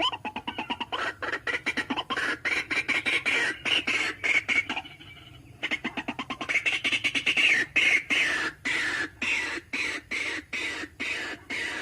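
White-breasted waterhen calling: a fast run of short, repeated notes, several a second, that breaks off briefly about five seconds in and then carries on.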